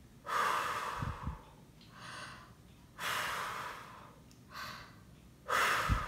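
Breath blown at an iPhone 6S's built-in microphone in five puffs, three stronger ones of about a second each with two faint short ones between them. A couple of the blows catch the mic as a low wind rumble.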